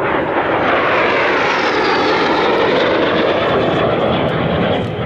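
An L-39 Albatros jet flying past with a steady jet roar and a faint high whine that falls in pitch as it goes by. The sound eases slightly near the end.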